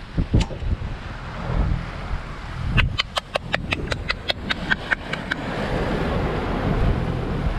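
Wind buffeting the microphone and waves rushing past a sailing yacht's hull. In the middle, a sailing winch ratchets with about fifteen quick, even clicks over two and a half seconds as the spinnaker halyard is hauled in.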